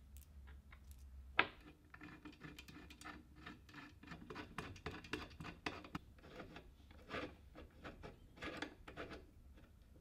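Hex key turning a steel socket-head cap screw into the drill stand's cast clamp collar: a run of small metal clicks and scraping as the key and screw turn. There is one sharper metal click about a second and a half in.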